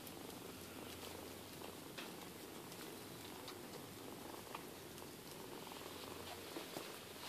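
Cat purring steadily, a low even rumble, while kittens suckle.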